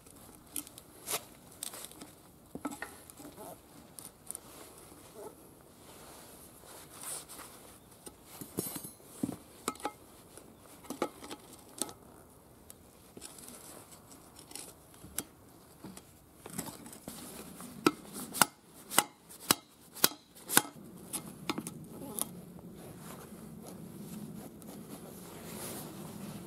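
Steel hand tools clinking and knocking against the steel rim of a small tractor wheel while a rusted, stuck tire bead is worked loose, with a quick run of about half a dozen sharp knocks a little past halfway.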